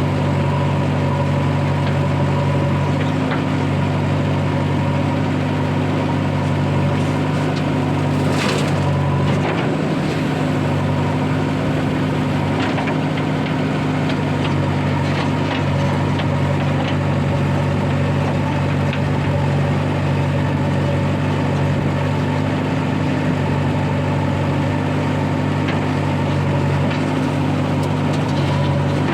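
Diesel engine of the loading machinery running steadily at a constant speed, with one short sharp knock about eight and a half seconds in.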